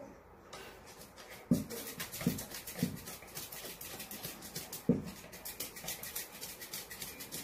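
Maltese dog rubbing and wriggling its body hard against a wall and the floor: a fast, scratchy rustle of fur on the surface. Four dull thumps come as it bumps against the wall.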